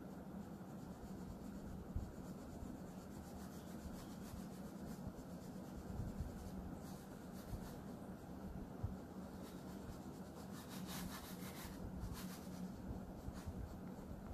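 Oil pastel stick rubbing across drawing paper in repeated strokes, faint and scratchy, with a stretch of louder scratching about two-thirds of the way through.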